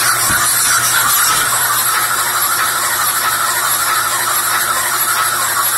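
A 6.0 Powerstroke V8 diesel with aluminium heads being spun by a SimTest engine test machine: a steady mechanical whir from the turning valvetrain, with a high whine over a low hum.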